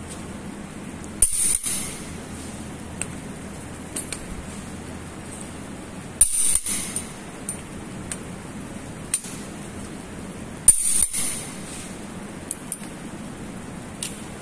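Torque wrench tightening engine cylinder head bolts: three sharp metallic clicks about four to five seconds apart, each followed by a brief rattle, with a few lighter ticks between. Each click marks a head bolt reaching its set torque of about 113–123 newton metres.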